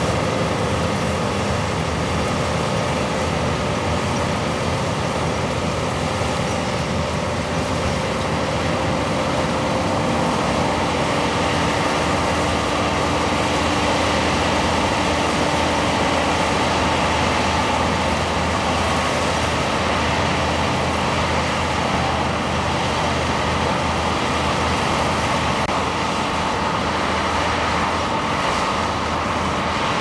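New Holland TX36 combine harvester running steadily under load while cutting and threshing wheat. Its engine and threshing machinery make a constant, dense mechanical drone with a few faint steady whines through it.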